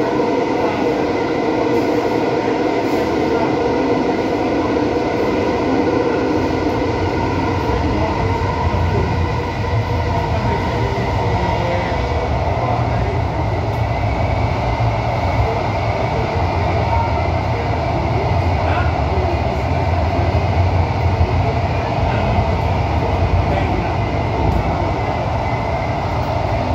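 Thomson–East Coast Line metro train running through a tunnel, heard from inside the front car: a steady rumble of wheels on rail under a constant whine. The low rumble grows stronger about eight seconds in.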